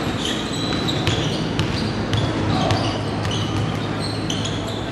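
Basketball being dribbled on a hardwood gym floor: irregular bounces over the noise of a large hall.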